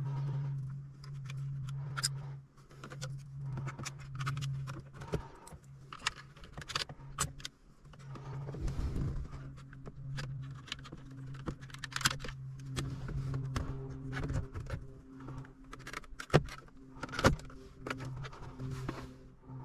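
Irregular clicks and rattles of plastic interior trim parts being handled and pressed into place during refitting of a car's center console, over a steady low hum.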